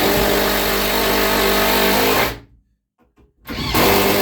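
Power drill driving a screw into a wooden block, running at a steady pitch. It stops about two seconds in and starts again about a second later.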